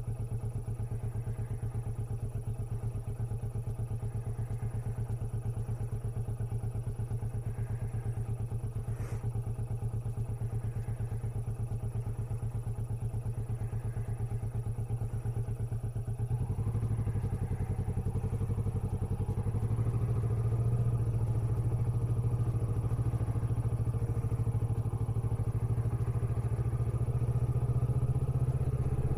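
Kawasaki Vulcan S's 649 cc parallel-twin engine running at low revs as the motorcycle rides slowly. It grows louder and fuller a little past halfway through.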